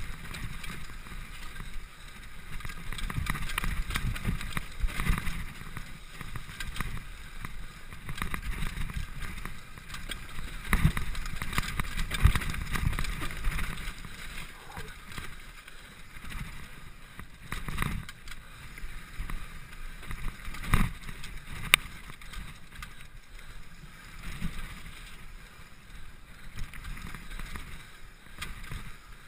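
Mountain bike running fast down a dirt forest trail: a steady rumble of tyres on dirt and wind on the microphone, broken by repeated knocks and rattles from the bike over bumps. The hardest hits come about eleven to thirteen seconds in and again about twenty-one seconds in.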